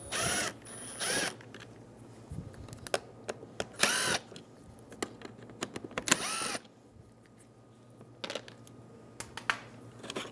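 A cordless power screwdriver spinning out the Phillips screws that hold the power window switch in the door panel, in four short bursts whose motor whine rises and falls, with small clicks of the screws and plastic between them.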